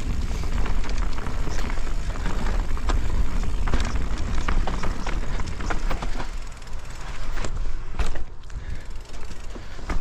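Specialized Kenevo electric mountain bike riding down a rocky dirt trail: tyre noise with rattles and sharp knocks from the bike over stones and roots, over a steady low rumble. A louder knock comes about eight seconds in, followed by a briefly quieter stretch.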